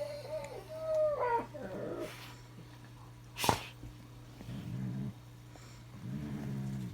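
Dog whining with high, gliding whimpers, then a single sharp click about three and a half seconds in, then low grumbling growls near the end.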